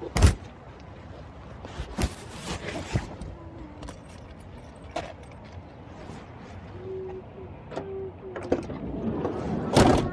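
Handling noise in and around a car: a sharp knock right at the start, scattered clicks and clunks through the middle, and a louder thump near the end, as of car doors, fittings and buckles being handled.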